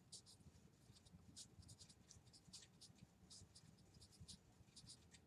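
Pen writing on a paper pad: a run of faint, short strokes in quick succession.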